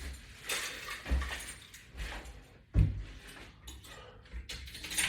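Exercise equipment in use: irregular knocks and light metallic clinks, with two louder thumps about a second in and near three seconds.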